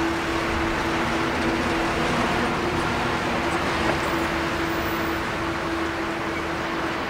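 Boeing 777-200ER's twin General Electric GE90 turbofans at takeoff thrust, a steady jet roar with a droning tone running through it as the airliner lifts off and climbs away.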